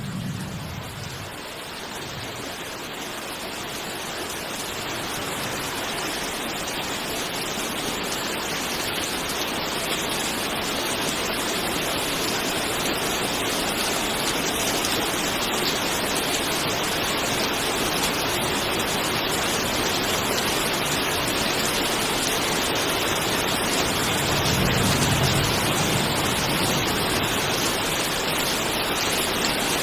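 Steady rain falling, an even hiss that grows gradually louder over the first several seconds. A low rumble swells briefly at the very start and again about three-quarters of the way through.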